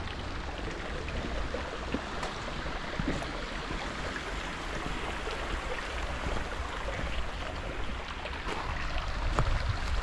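Mountain creek water running steadily, with a low wind rumble on the microphone.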